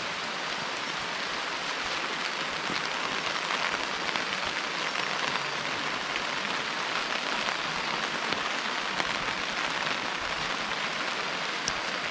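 Steady rain falling on a camping flysheet stretched over a tent: a dense, even patter of drops on the fabric.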